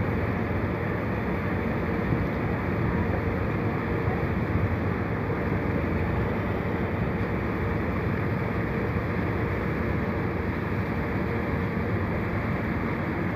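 Passenger ferry under way: a steady engine drone with water rushing along the hull.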